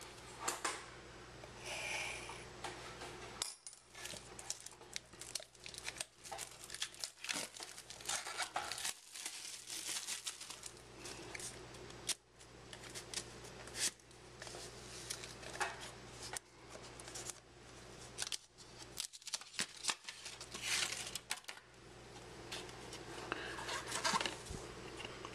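Plastic shrink wrap being torn and peeled off a trading card box, crackling and crinkling in quick irregular bursts, mixed with sharp clicks and taps as the box is handled.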